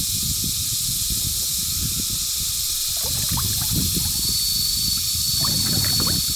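Fast-flowing river water rushing with a steady hiss, over a low rumble. About four seconds in, a thin, high, steady whine joins it.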